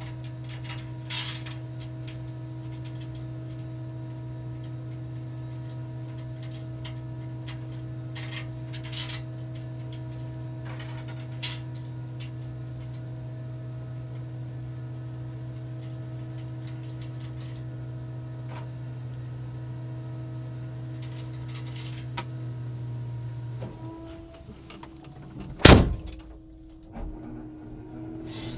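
Steady machine hum from the Scania timber truck, with a few light clicks and knocks. The hum cuts off about 24 seconds in, and a single loud bang follows about two seconds later.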